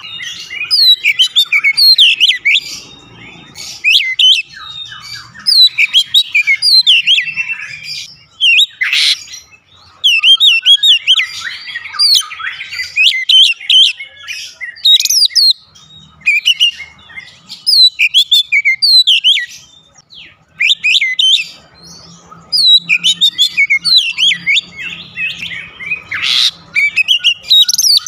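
Oriental magpie-robin singing: a rapid, varied run of loud whistles and chirps in phrases, broken by a few short pauses.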